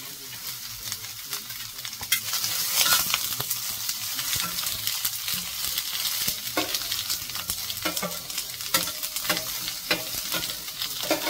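Onions sizzling on a hot stainless electric flat-top griddle, with short scrapes and knocks as they are stirred and pushed around the plate. The sizzle gets louder about two seconds in. The onions are being fried to finish seasoning the new griddle's plate.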